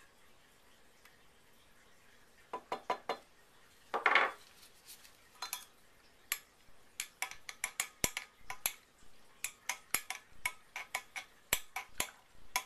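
A utensil clinking against a glass measuring cup as liquid cleanser is stirred in an ice bath: a few clinks and a brief rattle in the first half, then quick, irregular taps against the glass from about six seconds in.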